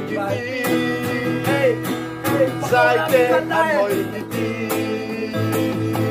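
Black acoustic guitar strummed in a steady rhythm, with young men's voices singing along over it.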